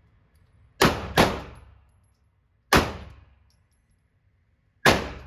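Four gunshots at a shooting range: two in quick succession, then two more spaced about two seconds apart, each with a short echoing tail.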